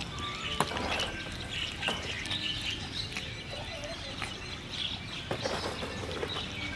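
Puppy eating wet food from a plastic bowl: wet chewing and smacking, with sharp clicks now and then.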